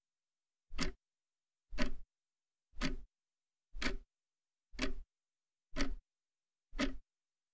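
Clock ticking sound effect: seven loud, evenly spaced ticks about one a second, with dead silence between them.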